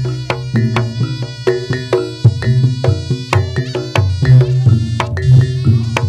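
Javanese reog-style percussion music (tabuhan): drums with a heavy low beat and struck pitched instruments in a quick, dense rhythm, played loud through a sound system.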